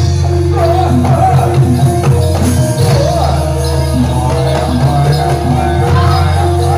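Javanese jathilan (kuda lumping) dance music: a gamelan-style ensemble playing repeating short metallophone notes over a steady low tone, with a wavering melody line on top and percussion.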